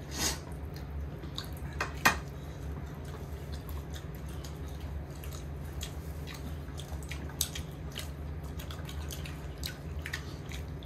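Eating sounds at a meal: soft chewing and scattered clinks of cutlery and dishes, the sharpest clink about two seconds in, over a steady low hum.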